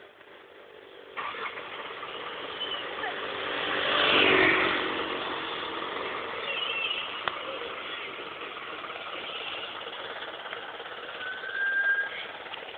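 Road traffic: a vehicle passes close by, loudest about four seconds in, over steady traffic noise. A short high tone sounds near the end.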